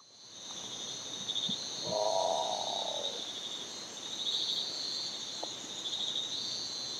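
Birds calling in a forest ambience that fades in over a steady high-pitched drone. Short trilled calls repeat every couple of seconds, and a louder, lower rasping call comes about two seconds in.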